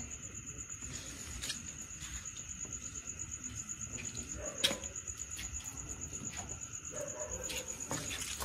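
Crickets trilling steadily in a high, fast-pulsing tone, with a few sharp clicks, the loudest about halfway through.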